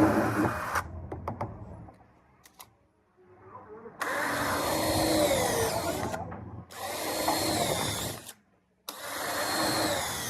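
Power drill running in three bursts of about two seconds each, with pitches that slide downward within each burst.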